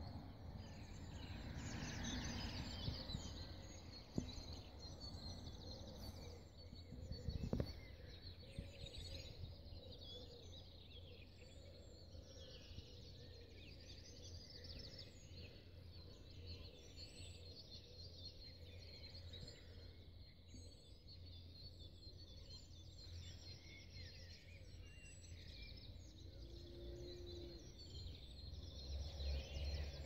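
Dawn chorus: many songbirds singing at once, a dense overlapping mix of high chirps and warbles, faint over a low steady rumble.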